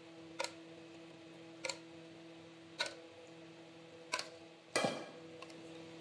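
Metal spoon tapping against the saucepan and glass baking dish while béchamel is spooned over potatoes: four sharp taps about a second and a bit apart, then a louder clatter shortly before the end. A steady faint hum runs underneath.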